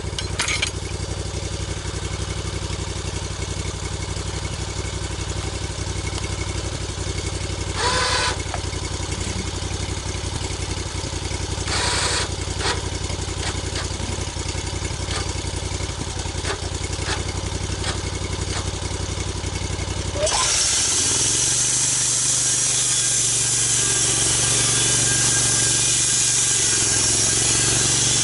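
Engine of a log-milling saw running steadily at a low, even speed, with a couple of short scrapes. About two-thirds of the way through the sound jumps louder: the engine note changes and a loud steady hiss begins as the saw cuts into the log.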